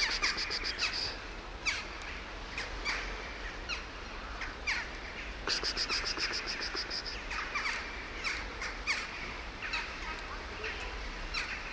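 Small birds chirping: many short, quick downward chirps. Two bursts of a rapid high trill come in, one at the start and one about halfway through.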